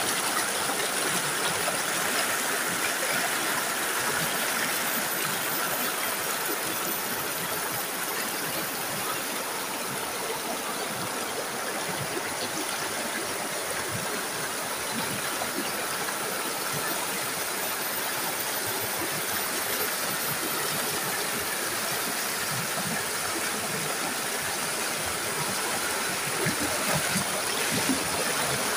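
Shallow rocky stream rushing and splashing over boulders in small white-water cascades, a steady rush of water that grows a little louder near the end.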